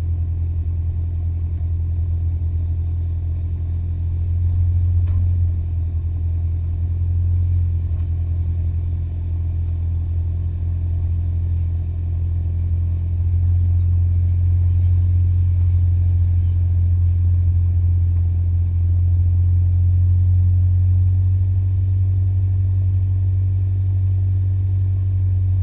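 Low, steady drone of a four-wheel-drive's engine pulling uphill over snow, growing somewhat louder about halfway through.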